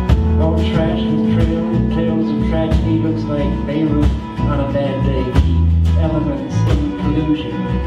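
Live country-folk band playing an instrumental passage: acoustic and electric guitars, Weissenborn lap slide guitar, electric bass, keyboard and drums, with cymbal hits through it.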